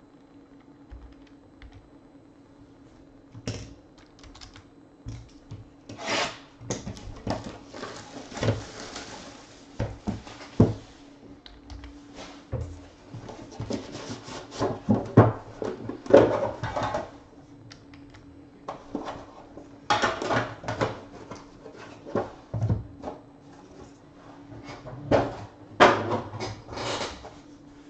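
Hands opening a Panini Immaculate Baseball trading-card box: cardboard rubbing and scraping as the lid is slid off, with scattered taps and knocks as the boxes are handled and set down.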